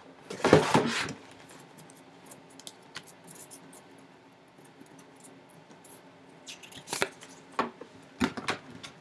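Cardboard hobby box handled on a hard table: a short rustle and scrape in the first second, then a few sharp light clicks and taps near the end.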